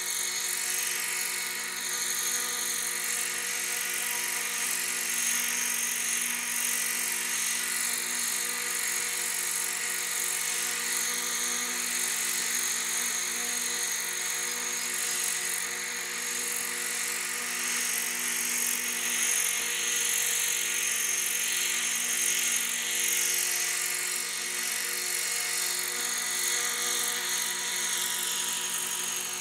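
Engine-powered radio-controlled model helicopter hovering: a steady high-pitched engine whine over rotor noise, swelling slightly in pitch and loudness now and then as it drifts.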